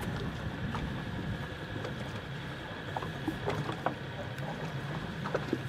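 Steady low hum of the sailboat's engine running at idle, with small knocks and rubs of a mooring line being worked loose from a stern cleat.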